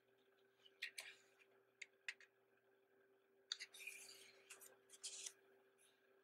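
Pages of a glossy printed program book being handled: a few light paper taps and scrapes, then a page turned with a papery rustle from about three and a half to five seconds in.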